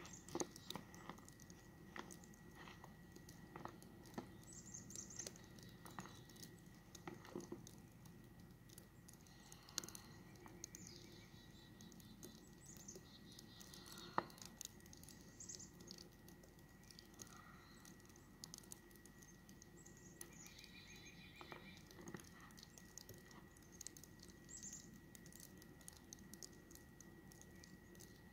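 Near-silent snowy outdoor ambience: faint scattered ticks and patter, a few faint high chirps now and then, and a faint steady high whine underneath.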